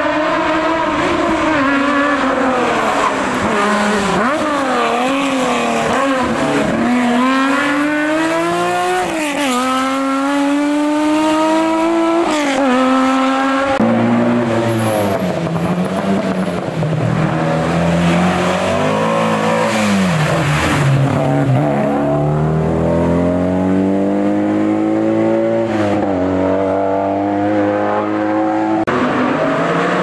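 Historic rally car, a Porsche 911 with its air-cooled flat-six, driven hard up a twisty stage: the engine rises again and again through the revs, each pull broken off by a gear change or a lift for a bend, with a long climbing pull near the end.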